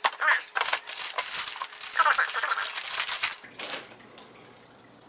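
Anti-static plastic bag crinkling and rustling with quick crackles as a computer motherboard is slid out of it, stopping about three and a half seconds in.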